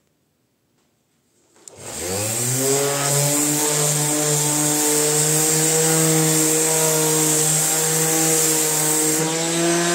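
Electric random orbital sander switched on about two seconds in, its motor spinning up with a rising whine, then running steadily at full speed.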